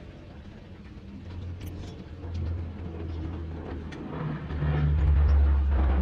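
A motor vehicle's engine passing by: a low rumble that grows louder about a second in and is loudest near the end.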